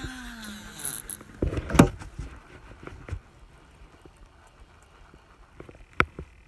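Baitcasting reel spool whirring out during a cast, its pitch falling as the spool slows, followed about two seconds in by a single sharp knock, the loudest sound; a smaller click comes near the end.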